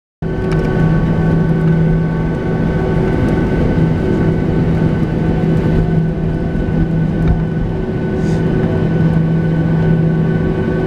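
Jet airliner's engines running steadily at low power while the aircraft taxis, heard from inside the cabin: a loud, even hum with several steady whining tones over it.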